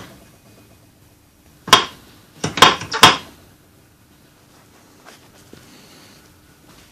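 Metal tools and driveshaft parts being handled: one sharp metallic clank, then three more in quick succession about a second later.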